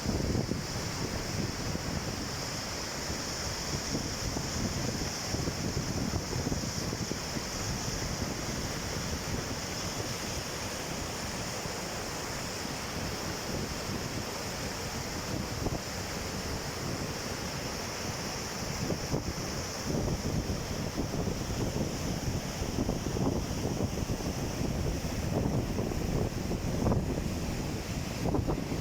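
Steady rushing of Pistyll Rhaeadr waterfall, with wind buffeting the microphone in gusts that grow stronger in the second half.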